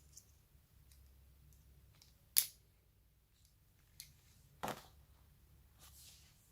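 A few sharp clicks and taps of a handset or its packaging being handled, the loudest about two and a half seconds in, then a fuller knock near the middle and a soft rustle near the end.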